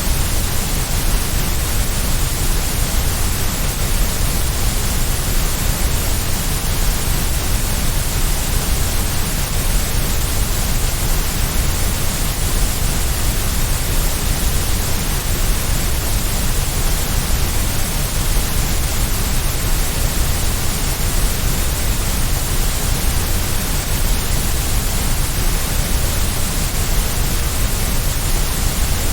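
Steady electronically generated white noise: an even, unchanging hiss with no breaks.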